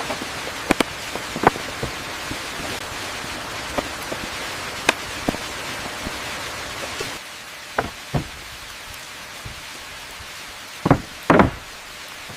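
Steady rain hiss with scattered sharp knocks of stones being set in place. The hiss drops to a lighter level about seven seconds in, and a louder double knock comes near the end.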